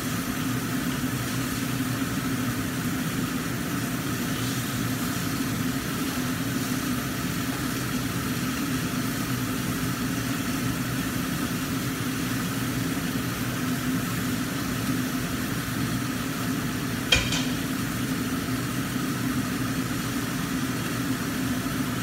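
Mackerel sizzling steadily as it fries in a lidded wok, over the constant hum of a kitchen range-hood fan. A single sharp clink comes about seventeen seconds in.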